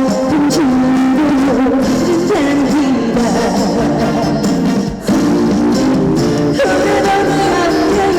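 Live trot song music: a band backing with a wavering lead melody line, dipping briefly in level about five seconds in.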